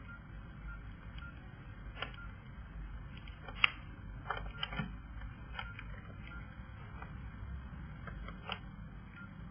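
Irregular clicks and taps, typical of a mobile phone being handled and its keys pressed, over a low steady background rumble. One sharp click about three and a half seconds in is the loudest, with a small cluster of clicks just after it.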